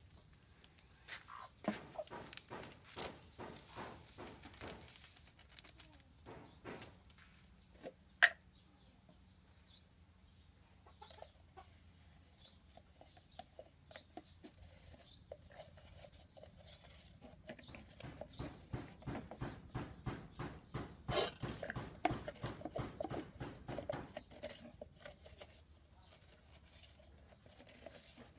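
Domestic chickens clucking, with scattered clicks and knocks. A single sharp knock comes about eight seconds in, and a quicker run of knocks past the middle.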